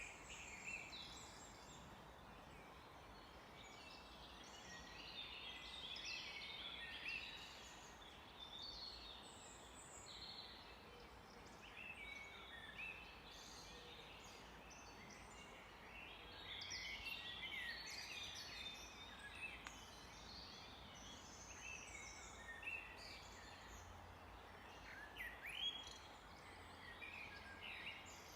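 Several songbirds singing and chirping together in a faint forest chorus, with short overlapping calls and trills throughout over a steady background hiss.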